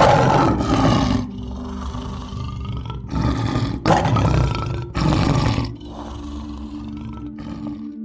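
Male lion roaring: a run of loud, rough roars with short gaps between them, dying away about six seconds in.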